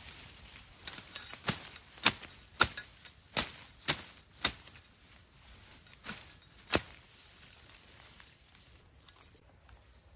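A hand tool striking sharply into grass and ground, about eight chopping blows at an uneven pace, then stopping.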